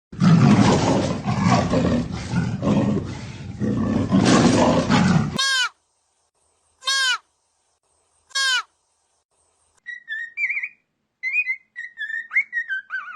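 A run of animal calls: a loud, rough roar lasting about five seconds, then three short whistled calls that fall in pitch, then a string of quick, high chirping calls near the end.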